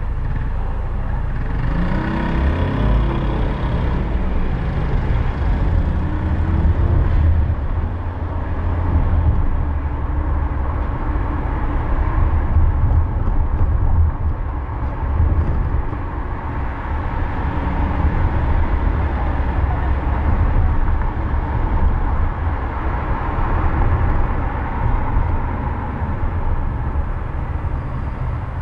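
Motor vehicle driving through city streets: a steady, loud low engine and road rumble, with an engine revving up in rising pitch about two seconds in.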